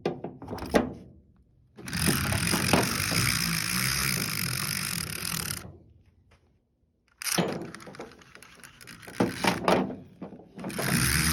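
Retractable ratchet strap being handled: sharp clicks and knocks of the hooks and housing, and two stretches of dense rasping noise, one about four seconds long and a shorter one near the end, as the webbing is drawn out.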